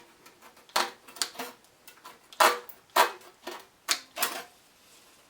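Left-handed aviation snips cutting sheet metal: a series of about eight short, sharp, irregularly spaced snips as a patch panel is trimmed, the offcut curling away.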